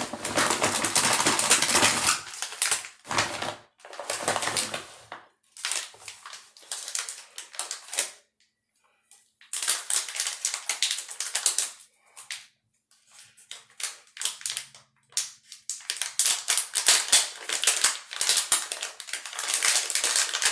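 Makeup items clattering and rattling as someone rummages through them by hand, in several bursts of dense clicking with short pauses between.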